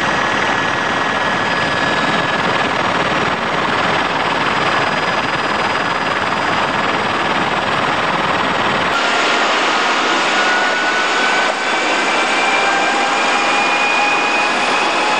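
Steady helicopter cabin noise, the engine and rotor running in flight, with thin steady whines over a dense rushing noise. About nine seconds in the sound changes abruptly: the deep part drops away, leaving a rushing noise with faint whines slowly rising in pitch.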